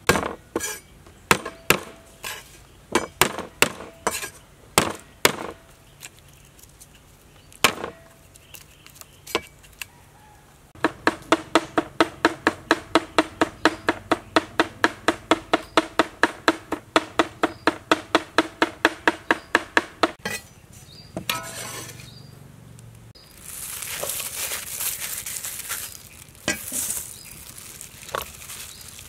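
A cleaver chopping on a wooden cutting board: scattered single strokes at first, then fast, even chopping at about four strokes a second for some nine seconds. Near the end comes a hissing rustle.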